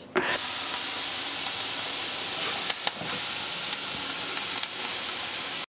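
A steady, even hiss with a few faint clicks. It starts abruptly just after the start and cuts off suddenly near the end.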